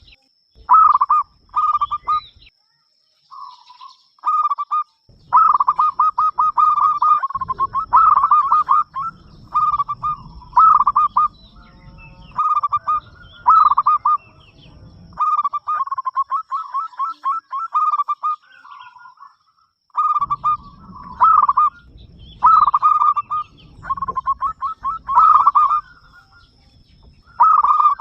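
Zebra dove (perkutut) cooing over and over: phrases of rapid, stuttering coo notes follow one another with short pauses between them. A faint steady high whine runs underneath.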